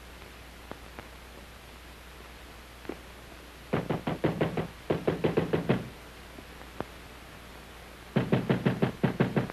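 Rapid, urgent knocking on a door, about seven or eight blows a second, in three quick flurries starting a few seconds in, from someone desperate to be let in.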